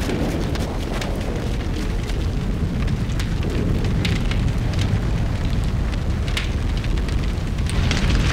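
A burning house: a fire's steady low roar with scattered crackles and pops.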